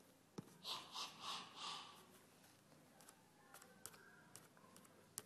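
Faint breathy mouth noises from children voicing a Puppet Pals animation: a click, then four short puffs of breath about a second in, followed by a few faint ticks.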